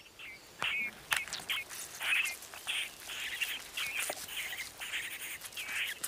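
Begging calls of nestlings in a carrion crow nest, among them a great spotted cuckoo chick that keeps calling for food: short, high calls repeated about two to three times a second without letting up.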